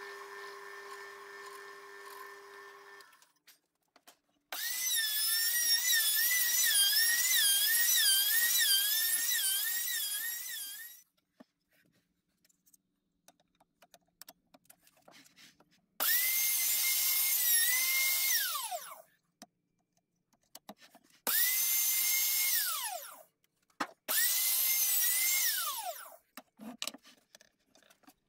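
Handheld trim router cutting a truss rod channel in a guitar neck blank: four runs of a loud high whine, the first about six seconds long with its pitch wavering as the bit cuts, the next three shorter, each winding down in pitch as the router is switched off. At the start a drill press motor hums steadily, then stops about three seconds in.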